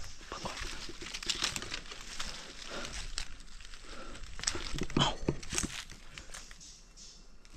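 Irregular rustling and crackling, with scattered sharp clicks.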